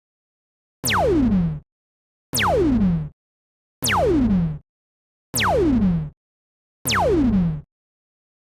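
Synthesized laser-gun sound effect fired five times, about every second and a half. Each shot is a quick falling zap that sweeps from a high pitch down to a low buzz and then cuts off.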